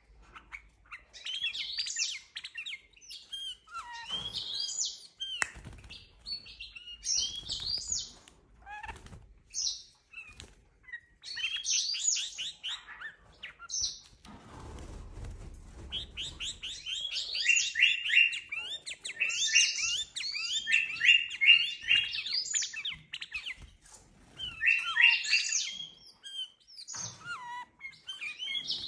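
Himalayan bulbul singing in repeated bouts of quick, bubbly, high warbling phrases, with longer and louder runs in the second half. About halfway through there is a brief rustling flurry as the bird flaps its wings.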